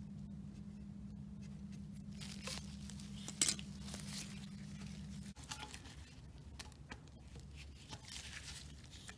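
Handling noises as a rubber power steering hose and its clamp are worked onto the plastic reservoir: scraping and rubbing with scattered clicks, and one sharp click about three and a half seconds in. A low steady hum underneath stops about five and a half seconds in.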